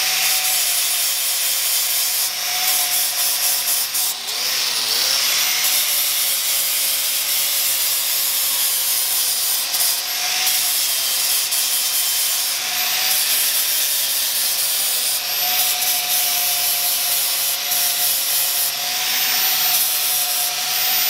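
Power sander working on car bodywork: a continuous rasping hiss over a steady motor whine that dips briefly, as if under load, about four seconds in.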